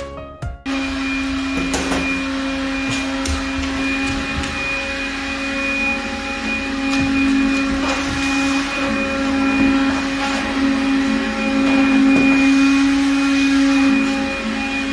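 Vacuum cleaner running with a steady droning hum and whine, with a few light knocks and clicks. It comes in abruptly just after piano music ends and grows louder for a while near the end.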